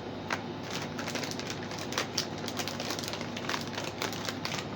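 Plastic snack wrapper crinkling: irregular crackles and sharp clicks as the bag is handled.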